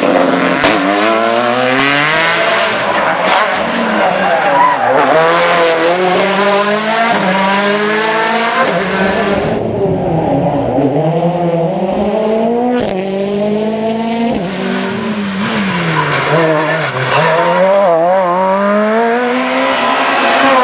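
Rally car engine driven hard on a stage, its pitch repeatedly climbing under acceleration and dropping at gear changes and braking, with some tyre squeal.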